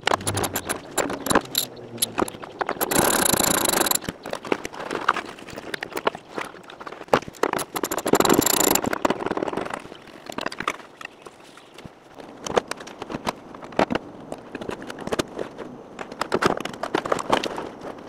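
Hands-on work on a car interior: a socket ratchet clicking on a seat-belt anchor bolt, with metal clinks and rattles of tools and parts and the scraping of carpet and plastic trim being pulled out. Twice the sound thickens into a denser, louder stretch of about a second.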